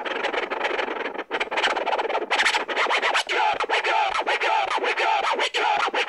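Vinyl scratching on a Numark PT-01 Scratch portable turntable: the record is worked back and forth under a Shure M44-7 stylus on a Bihari straight tonearm, cutting up a sample in quick, sweeping strokes with a brief break about a second in.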